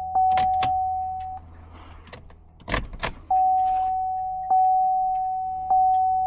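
A car's warning chime dinging a single steady note about once every 1.2 seconds. It stops for about two seconds around the middle, during a few sharp clicks and a louder double knock, then starts again.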